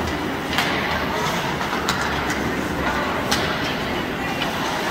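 Ice hockey play in a rink: the steady scraping rumble of skates on the ice, broken by several sharp clacks of sticks and puck, over spectators' murmur.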